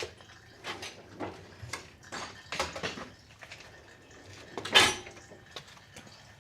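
Scattered metallic clinks and knocks of tools and parts being handled while the oil filter is worked loose, with a sharper clack about five seconds in.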